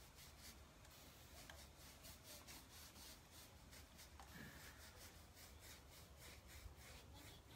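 Faint, quick strokes of a paintbrush rubbing clay paint across a dresser, about three or four strokes a second, as the colours are blended.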